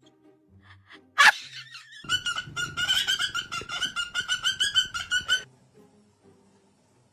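A parrot calling: one sharp squawk about a second in, then a fast run of repeated calls on the same pitch, several a second, lasting about three seconds.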